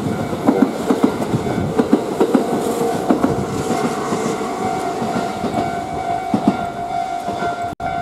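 Kintetsu express train passing on the tracks below, its wheels clacking rapidly over rail joints; about two and a half seconds in, a steady high tone joins and holds.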